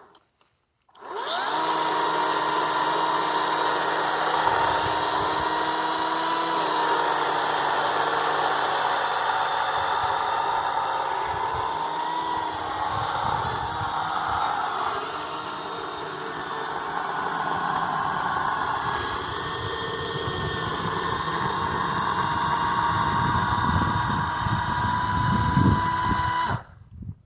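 Kobalt 40V Max cordless electric chainsaw starting about a second in and running steadily through a long cut in wood, a continuous motor whine that sags slightly under load in the middle. It cuts off suddenly near the end.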